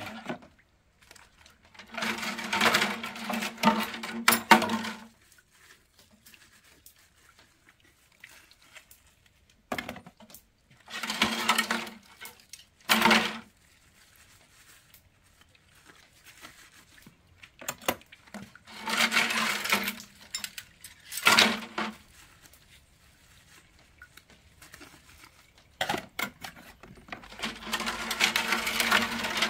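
Metal kitchenware being handled: pots, dishes and cutlery clinking and scraping in five separate bursts of a few seconds, each with a steady ringing tone.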